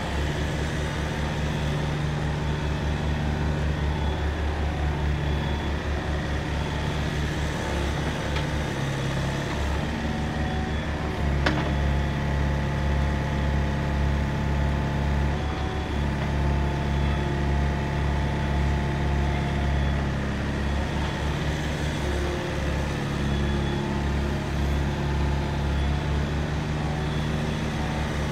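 Yanmar VIO55 mini excavator's diesel engine running steadily. A higher steady whine joins for several seconds near the middle while the upper structure swings round.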